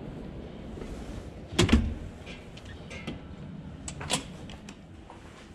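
Glass entrance door being opened: a loud clunk and rattle about a second and a half in, then a few lighter clicks and knocks, the sharpest near four seconds.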